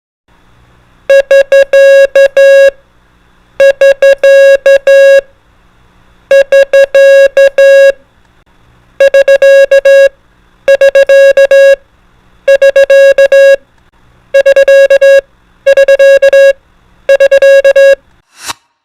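Morse code tone keying the prosign SK, 'end of work', nine times: three times slowly, three times faster, three times faster still, each group of dits ending on a dah. A faint music bed runs underneath, and there is a short burst of noise near the end.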